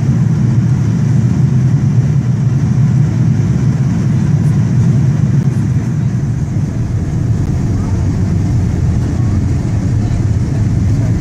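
Steady low rumble of an airliner's engines and airflow heard from inside the cabin during the landing.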